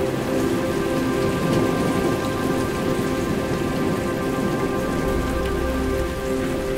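Omnisphere 2 rain-texture synth patch built from field-recorded night rain: a steady rain hiss layered with several sustained pad tones held as a chord. A low rumble comes in about five seconds in.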